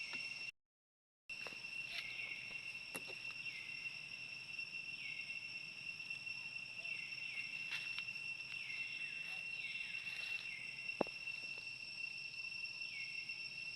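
Steady high-pitched insect drone, such as crickets or cicadas, with a series of short calls that fall in pitch repeating every second or so. The sound cuts out completely for a moment just after the start.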